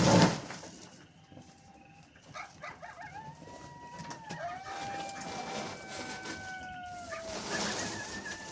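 A sudden loud noise right at the start, then animal howls: long drawn-out calls held at a steady pitch for several seconds, two or more overlapping at different pitches and dropping at their ends, with another howl beginning near the end.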